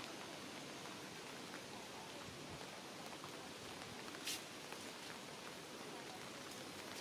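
Faint, steady outdoor background hiss, with one sharp click a little over four seconds in.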